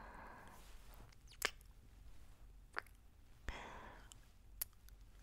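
Soft breathing of a person close to the microphone, with three sharp little clicks between the breaths, the first the loudest.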